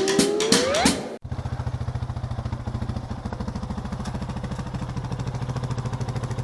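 Background music ends with a rising note about a second in, then an engine idles steadily with an even, fast pulsing beat.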